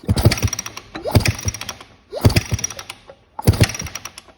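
A 2001 Kawasaki KX250 two-stroke being kicked over on its kickstarter about once a second, four strokes, each a clattering rush of ratchet and gear noise as the engine spins: a spark check after a new stator, wire harness, CDI box and coil were fitted.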